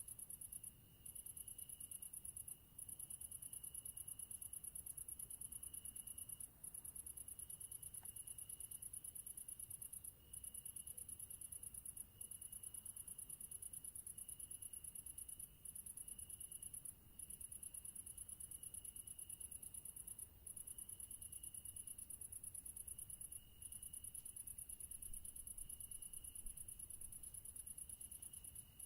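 Crickets singing: a very high, continuous trill that breaks off for a moment every few seconds, over a lower, softer song that pulses steadily.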